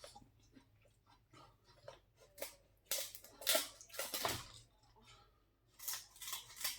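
Irregular crunching and wet clicking as seafood is eaten and its shells are cracked and handled at close range, with a cluster of louder cracks about halfway and again near the end.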